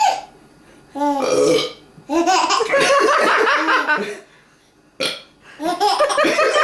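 Loud, gassy, drawn-out burps, done deliberately to amuse, mixed with laughter. There are three bursts: a short one about a second in, a long one lasting about two seconds, and another starting near the end.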